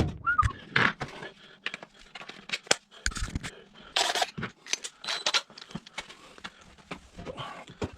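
Irregular clicks, light knocks and scrapes of wood pieces and small tools being handled on a workbench while dowel holes are set out.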